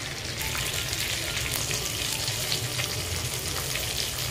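Rohu fish steaks frying in hot oil over a high flame: a steady sizzle thick with small crackles and spatters.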